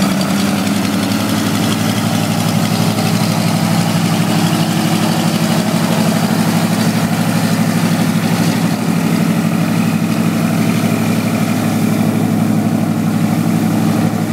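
A loud, steady engine drone with a low hum that holds unchanged throughout.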